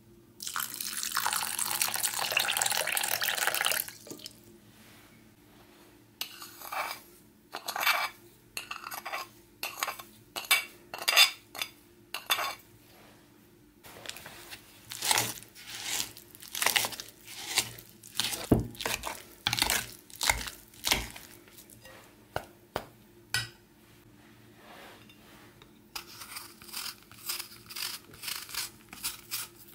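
A metal potato masher knocking and scraping against a ceramic bowl in a series of irregular strikes while it mashes cottage cheese. Near the start there is a steady pouring hiss lasting about three seconds. Near the end a knife peeling an apple makes quick, light scraping ticks.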